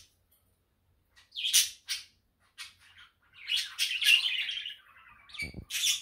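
Budgerigars chirping and warbling: a few short chirps, then a longer run of chatter from about three and a half seconds in. A short low thump comes near the end.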